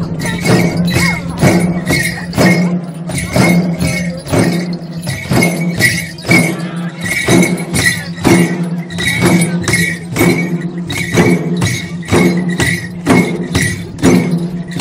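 Several large Limbu two-headed barrel drums (ke, chyabrung) being beaten together in a steady, fast dance rhythm, with a metallic jingling on many of the strokes.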